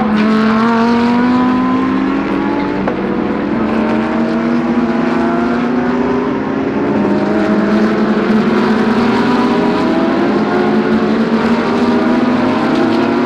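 GT3 race cars accelerating on the circuit, several engines heard at once, their pitch rising slowly as they pull through the gears.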